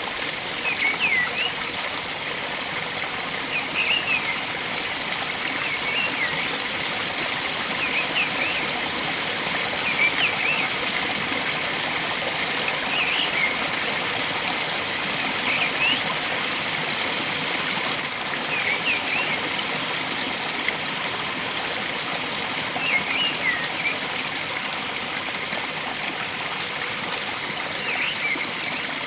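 Stream water flowing with a steady rush. Over it a bird calls in short clusters of quick chirps every two to three seconds.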